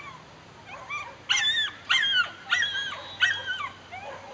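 Dog barking excitedly: a couple of faint yips, then four loud, high barks about two-thirds of a second apart.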